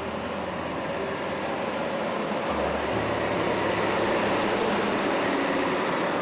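Steady rushing machine noise with low held music notes beneath it that change twice partway through.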